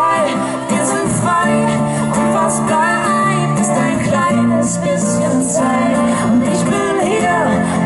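Live acoustic band music: a woman singing over acoustic guitar, amplified through PA speakers.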